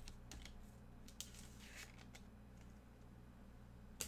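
Near silence with a steady low hum and a few faint clicks and rustles of trading cards being handled, a sharper click about a second in and another near the end.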